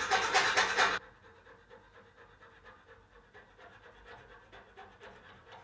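Fine-bladed frame saw cutting through a small metal model-car part in quick back-and-forth strokes. Loud for about the first second, then it drops suddenly to faint strokes.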